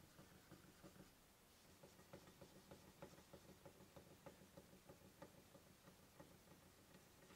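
Near silence with faint, quick rubbing strokes and light ticks of a cloth wiping over a wooden chair frame.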